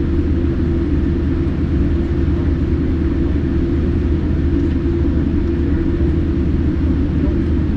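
Cabin noise inside a Boeing 787-9 jetliner: a steady, loud low rumble of the twin turbofan engines and airflow at takeoff power.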